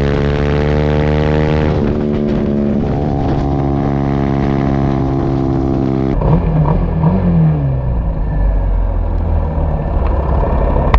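Race-spec TVS Apache 200 single-cylinder engine running hard on the track, its note holding steady with small shifts in pitch. About six seconds in the sound changes to a lower, rougher engine rumble with a few revs rising and falling.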